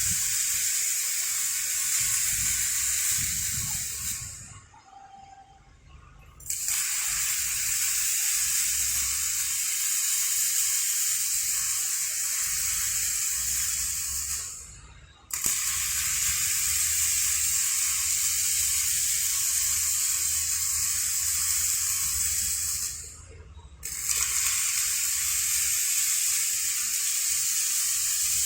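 Automatic scaffolding-standard welding machine's welding arcs sizzling and hissing steadily, cutting off three times for a second or two between welds before striking again.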